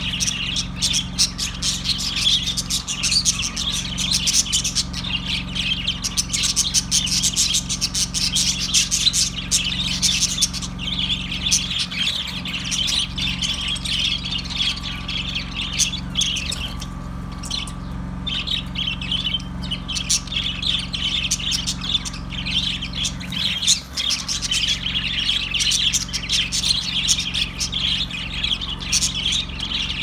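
A large flock of budgerigars chirping and chattering continuously, thinning briefly just past the middle, over a steady low hum.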